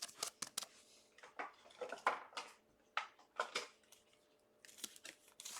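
Trading cards and their packaging being handled: scattered short clicks, rustles and scrapes at an irregular pace, quiet for a moment a little past the middle.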